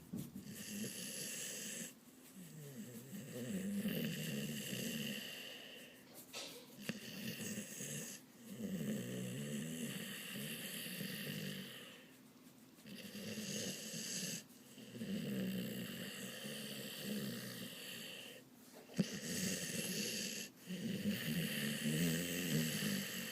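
A dog snoring while awake, one rough, rasping snore after another. Each snore lasts a couple of seconds, with short quiet breaks between them.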